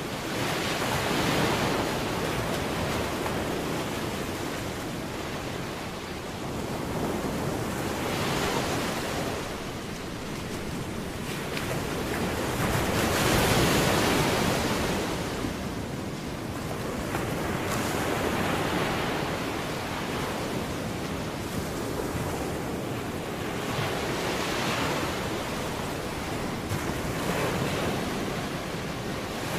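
Ocean surf: waves rushing in and washing back, swelling and fading about every four to six seconds, loudest about halfway through.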